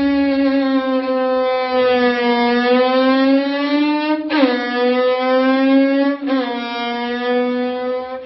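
Violin bowed in one long held note that drifts slowly in pitch and swoops sharply twice, about four and six seconds in, mimicking a motorbike revving through its gears.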